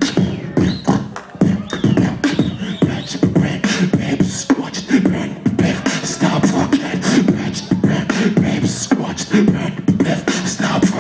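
Live human beatboxing amplified through a concert sound system: a fast, continuous rhythm of mouth-made kick, snare and hi-hat sounds over a humming bass line.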